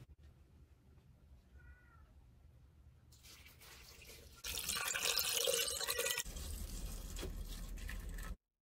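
Red shiso-coloured plum brine poured from a wooden bowl into a glass jar of salted ume plums: a splashing pour that starts about three seconds in, is loudest for a couple of seconds, then runs on more quietly before stopping near the end.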